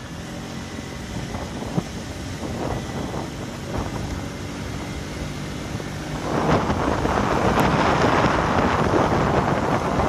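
Car driving at low speed, its engine running with a low steady hum and road noise. A little past halfway, strong wind hits the microphone and a loud rushing wind noise covers the rest.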